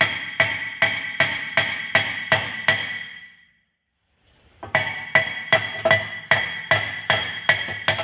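Hammer blows on the back of a VW Golf GTI Mk7 rear brake disc, struck through the gap in the dust shield to knock the disc free of the hub; each blow makes the disc ring. An even run of about two or three blows a second, with a break of about a second around the middle.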